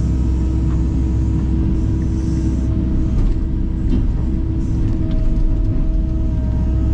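Kubota KX080 excavator's diesel engine running steadily with a deep rumble, with a few faint knocks and clatter from the concrete being worked.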